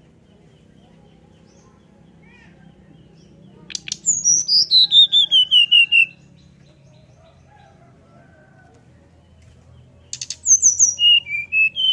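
Brown-chested jungle flycatcher (sikatan rimba dada coklat) singing two short song phrases. Each phrase starts with a few sharp clicks, then a quick run of clear whistled notes that fall steeply in pitch. The first comes about four seconds in and the second near the end.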